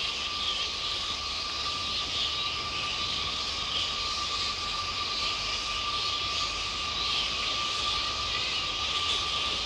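A roosting colony of fruit bats (flying foxes) squabbling: a continuous high-pitched chatter of many overlapping calls, with a steady thin tone underneath.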